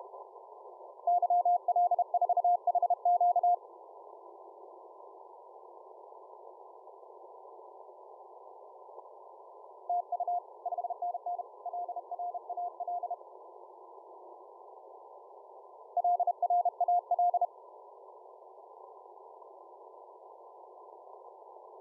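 Morse code (CW) signal received on shortwave through a software-defined radio: a single tone keyed on and off in dots and dashes, in three short runs, over a steady band of receiver hiss. The middle run is fainter than the other two.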